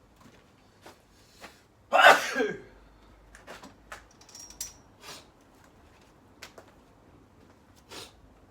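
A single loud hay-fever sneeze about two seconds in, falling off in pitch at the end, followed by a few scattered soft taps and clicks.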